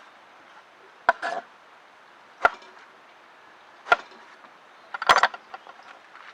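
Wood being chopped: four sharp blows about a second and a half apart, with a crackle of splitting wood after the first and the last.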